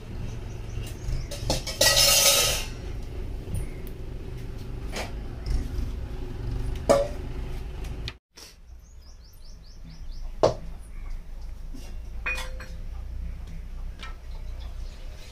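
Scattered clinks and knocks of stainless-steel plates being handled on a concrete floor, one leaving a brief metallic ring near the end, with a short burst of rustling about two seconds in.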